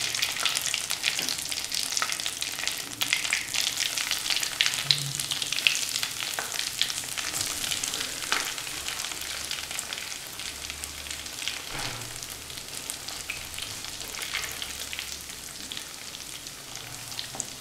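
Breaded chicken cheese fingers deep-frying in hot oil in a steel kadai: a dense, crackling sizzle with scattered pops that gradually quietens.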